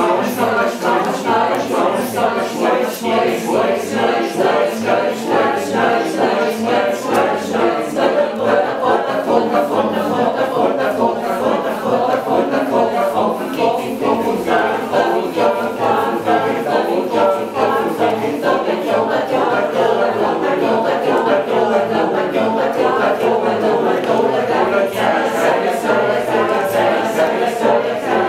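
A cappella choir singing, many voices overlapping in a dense, steady texture with a regular rhythmic pulse.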